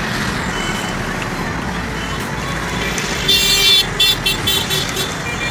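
Road traffic noise and wind rush from riding along a busy street. About three seconds in, a high-pitched vehicle horn gives a half-second honk, then several short toots.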